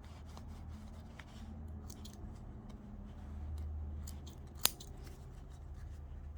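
Stitching on denim being unpicked: a run of small clicks and snips as the threads are cut, with one sharper snap about four and a half seconds in, over a low steady hum.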